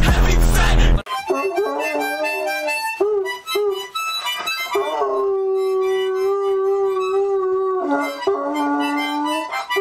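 A dog howling along while a toddler blows on a harmonica: short reedy harmonica chords, with one long steady howl held for about three seconds in the middle. It opens with a second of loud music that cuts off.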